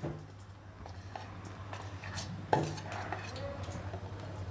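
Metal spoon clinking and scraping against a steel container while soft solid ghee is scooped out and dropped into a kadhai, in light scattered knocks with a sharper clink about halfway through, over a low steady hum.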